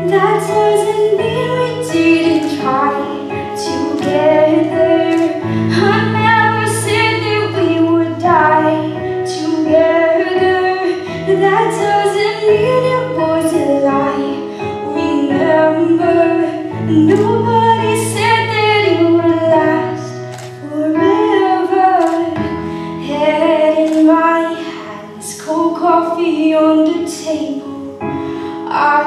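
A young woman singing a slow pop ballad solo over a backing track of sustained low chords.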